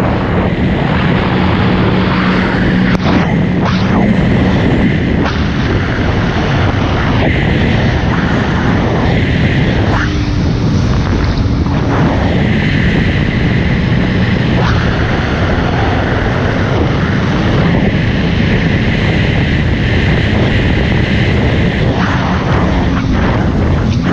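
Jet ski running at speed: a steady engine drone with a high whine that comes and goes, over the rush of water and wind.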